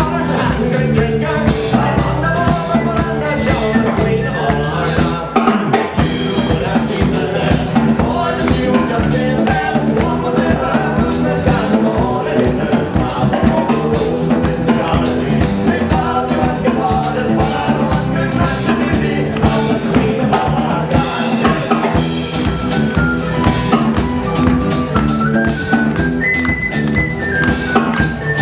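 Celtic rock band playing live, a drum kit keeping the beat under the melody and band. The level dips briefly about five and a half seconds in.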